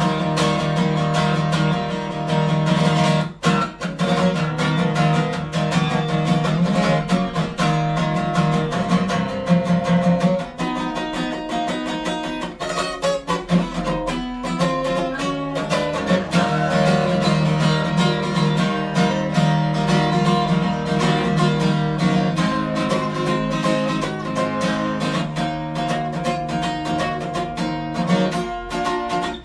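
Acoustic guitar strummed steadily, playing chords, with a brief break in the strumming about three seconds in.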